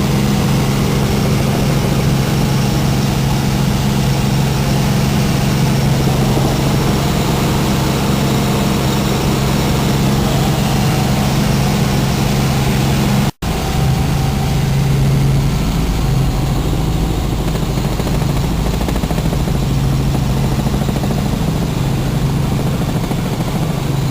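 Helicopter in flight: the steady drone of its engine and rotor, with a strong low hum under a broad hiss. The sound cuts out for an instant about thirteen seconds in, then carries on.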